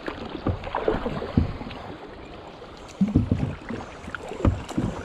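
A small boat moving on a river: water sloshing with irregular knocks and low thumps, heavier from about three seconds in.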